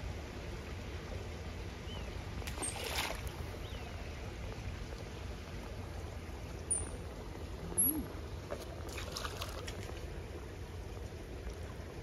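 Pool water trickling and lapping over a low steady rumble, with a couple of brief splashy sounds about three seconds in and again around nine seconds.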